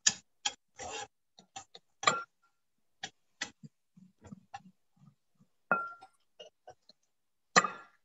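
A knife slicing kernels off a cooked ear of corn into a bowl: irregular short scraping strokes and clicks, about a dozen, with a brief ringing clink twice.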